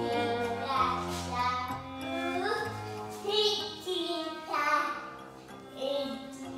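Music with a singing voice played through Lii Audio Crystal 10 full-range drivers with whizzer cones, fed by a valve amplifier.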